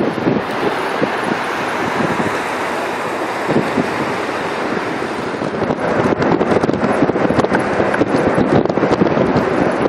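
Wind buffeting the microphone over the rush of road traffic, recorded from a moving vehicle. The buffeting turns choppier about six seconds in.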